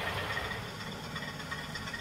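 Model train running along the layout and drawing away: a steady mechanical rumble and hiss with a faint repeated clicking, fading slightly.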